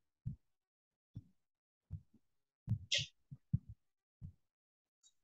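Faint, soft low thumps, about eight spread over a few seconds, from a cloth wiping a whiteboard and a marker being set to the board. A brief hiss comes about three seconds in.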